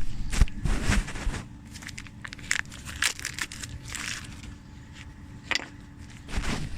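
Irregular clicks, knocks and scraping of tools and metal parts being handled during a brake pad change, over a steady low rumble.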